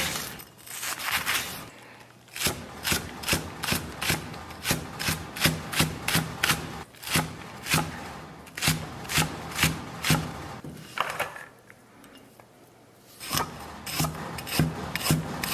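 Chinese cleaver chopping green onion on a thick round wooden chopping block: steady knocks of the blade on the wood, about two or three a second. The chopping pauses briefly about three-quarters of the way through, then quicker chopping of a piece of ginger starts near the end.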